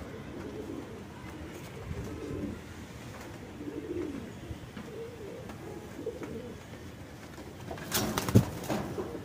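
Domestic pigeons cooing softly in short low calls, then a brief burst of wing flaps about eight seconds in as a pigeon beats its wings.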